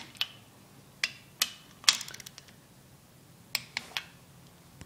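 Ratchet wrench clicking and metal clinking as jam nuts on a differential girdle are tightened: scattered sharp clicks, the loudest just under two seconds in, followed at once by a quick run of ratchet ticks, then a few more clicks near the end.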